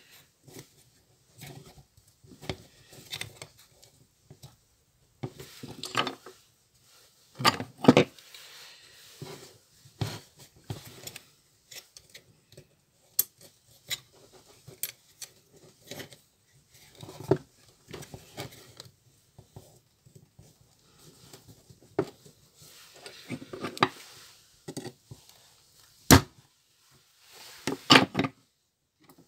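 Hands fitting the cover and screws of a BMW N53 throttle body: irregular small clicks, taps and clatter of plastic and metal parts. A few sharper knocks come about eight seconds in and twice near the end.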